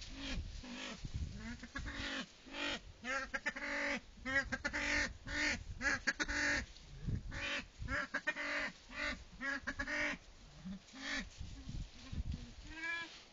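Male silver pheasant calling over and over, a string of short notes about two a second, broken by quicker rattling runs of notes in the middle and again near the end.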